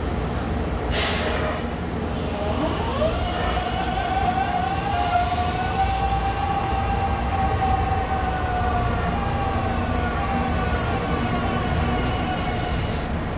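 Metro Expo Line light-rail train pulling out of the station. A short hiss comes about a second in, then the electric drive's whine climbs in pitch and holds as the cars roll past, over a steady rumble of wheels on rail.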